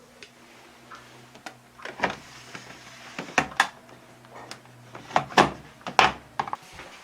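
Hand handling of a front-load washing machine's parts during disassembly: a string of irregular knocks, clicks and scrapes, with the sharpest knocks about 2 seconds in, twice around the middle, and twice near the end. A faint steady hum runs underneath.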